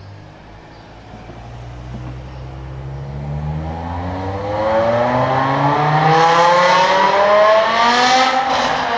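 BMW M5 E60's S85 5.0-litre naturally aspirated V10 accelerating hard: the engine note climbs steadily in pitch and grows louder for several seconds, then drops back near the end.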